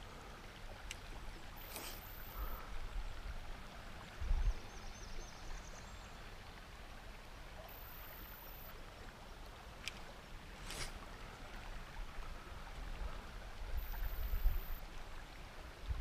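Shallow river flowing over a rocky riffle, a steady rush of water, with occasional low rumbles on the microphone and a couple of faint clicks.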